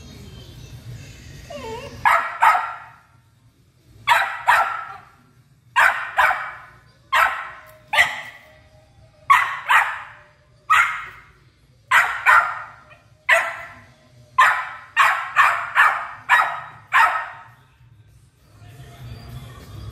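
Australian cattle dog (blue heeler) puppy barking over and over, short sharp barks in quick runs of two or three, starting about two seconds in and stopping shortly before the end.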